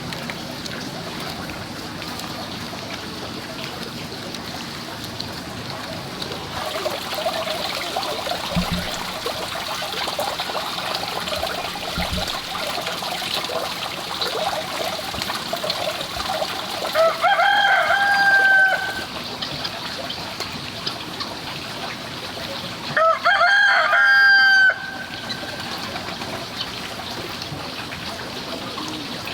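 A rooster crows twice, each crow about two seconds long, the first about two-thirds of the way through and the second some five seconds later, over steady background hiss.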